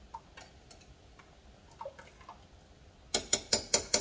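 A serving spoon knocked against the rim of a slow cooker, a quick even run of sharp clicks about five a second starting about three seconds in, after a few faint stirring knocks.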